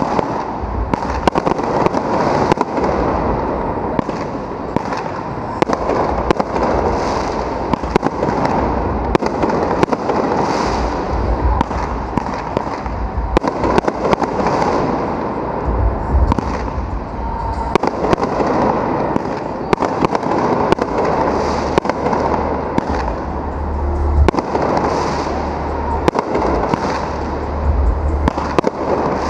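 Aerial firework shells bursting overhead in quick succession: low booms mixed with dense, continuous crackling from crackle stars.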